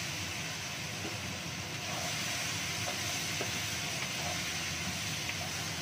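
Chicken feet sizzling in hot oil and fried spice paste in a wok: a steady hiss that grows stronger about two seconds in, with a few light knocks of a wooden spatula stirring them. A low steady rumble runs underneath.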